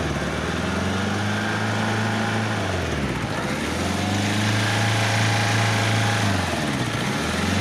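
Toyota diesel forklift engine running, its speed dropping and picking back up twice, about three seconds in and near the end. The engine knocks and is due for an overhaul.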